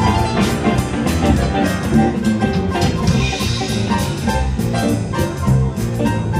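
Live band playing an instrumental passage without vocals: grand piano, electric guitar, bass guitar and drum kit keeping a steady beat.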